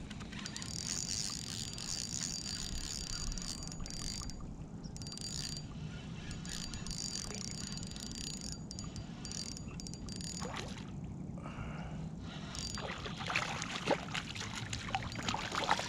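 Spinning fishing reel being cranked in stretches, a thin high whirr that stops and starts, while a hooked red drum is fought. Near the end the fish splashes and thrashes at the surface.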